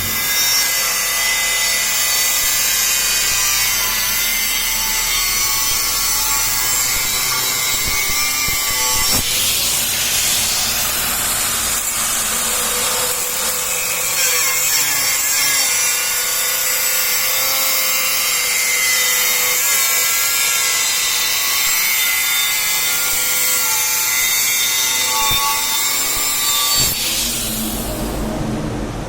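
A power tool running steadily on metal, a continuous harsh noise with wavering high-pitched tones.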